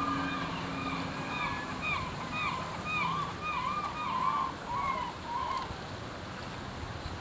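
A high, wavering call repeated about twice a second, each note rising and then falling, that fades out after about five and a half seconds. Underneath are water noise and a low engine hum that dies away in the first few seconds.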